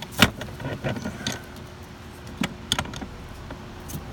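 Metal wrenches clicking and knocking against an A/C liquid-line fitting while working a very tight connection loose: one sharp knock just after the start, then a few lighter clicks.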